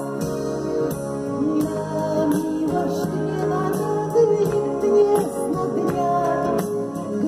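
A live song played through a stage PA: a backing band or track with a steady beat and a woman's singing voice over it.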